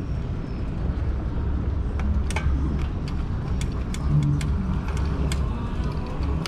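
Riding noise from a fat-tire e-bike on the move: a steady low rumble of wind and road, with a few scattered sharp clicks.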